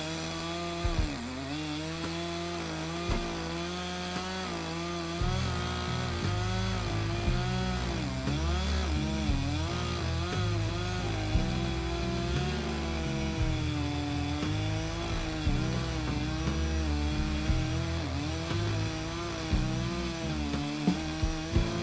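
Two-stroke gas chainsaw running at high revs and cutting through logs, its pitch dipping each time the chain bites and the engine bogs under load. A skid steer's engine rumbles underneath and gets louder about five seconds in.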